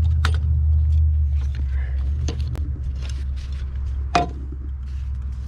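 Heavy-equipment engine running steadily with a low rumble, with a few scattered sharp clicks and knocks, the loudest a little over four seconds in.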